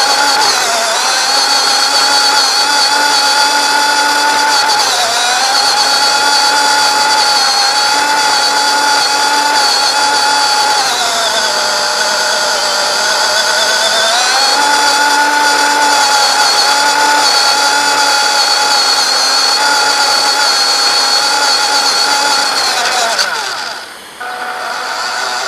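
Electric RC car motor whining, its pitch dipping and rising again a few times as the throttle changes. Near the end the whine falls away sharply and briefly quietens before starting again.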